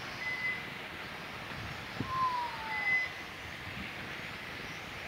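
Electric RC racing cars' motors whining faintly as they run the track, one whine starting sharply about two seconds in and falling slowly in pitch as the car slows, with steady outdoor noise underneath.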